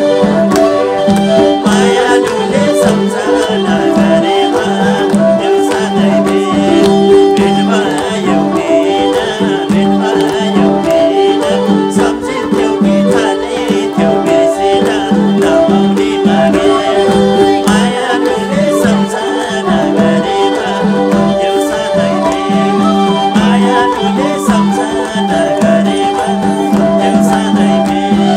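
Instrumental interlude of Nepali dohori folk music: a bowed sarangi and keyboard playing a repeating tune over a steady hand-drum rhythm.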